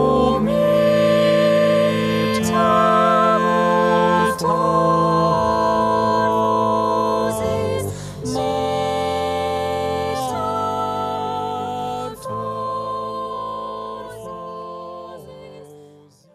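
Music: voices singing held chords in harmony over sustained instrumental tones, with a few struck accents, fading out over the last few seconds.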